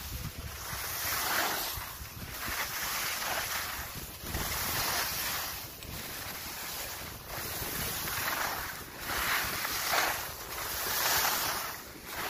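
Skis scraping and swishing across packed snow in a steady run of turns, a hissing swell roughly every second, with wind buffeting the microphone.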